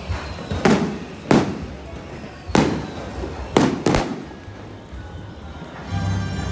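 Aerial fireworks shells bursting overhead: five sharp bangs with short echoes over about three and a half seconds, the last two close together.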